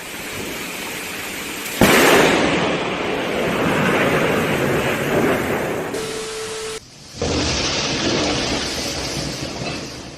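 Close lightning strike: a sharp, sudden thunderclap about two seconds in, then loud rumbling thunder that slowly fades over several seconds. After a short break near the end, a further stretch of storm noise with a low rumble.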